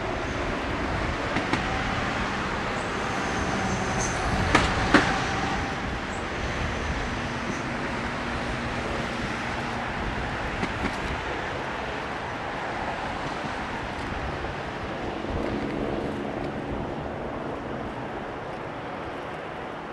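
Airbus A340-300's four CFM56 jet engines at takeoff thrust, a steady rushing noise as the airliner rolls, lifts off and climbs away. Two sharp knocks about four and a half and five seconds in.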